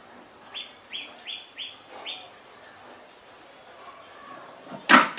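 A small bird chirping five short, high notes in quick succession, then a single loud, sharp knock near the end.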